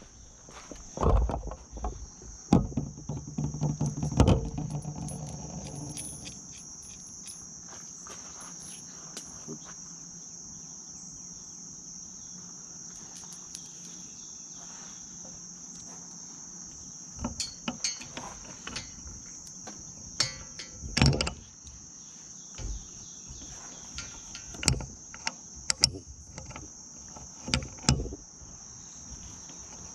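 Insects trilling steadily in one unbroken high note, with scattered sharp clicks and knocks of small bolts and spring nuts being handled against metal strut channel.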